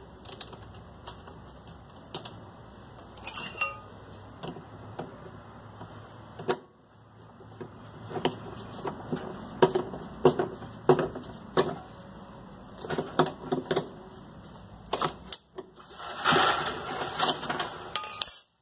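Scattered metallic clicks and knocks of a hand tool and parts as a pulley is fitted onto the shaft of a Brastemp washing machine's brake mechanism and fastened. A denser stretch of rattling clatter comes near the end.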